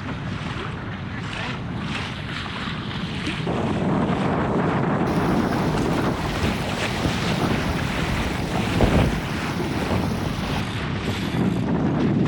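Wind buffeting the microphone and water rushing and splashing along the hull of a Laser dinghy under sail. The sound is a steady rush with no pitch, growing louder a few seconds in.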